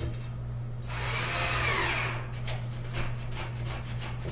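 Power drill-driver with a Phillips bit running for about a second, driving a screw out, followed by several light clicks.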